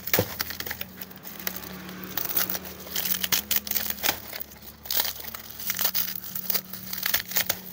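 Dry, dead agave leaves being peeled and torn off the stem by hand, crackling and crinkling irregularly as the tough dried leaf bases break away.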